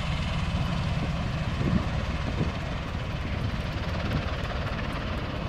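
MV-22 Osprey tiltrotor running steadily, a deep rotor rumble with a hiss of engine noise above it.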